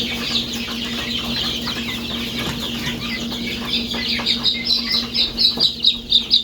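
A brood of chicks peeping in many high chirps. From about four seconds in, one chick close by peeps loudly and rapidly, about four peeps a second.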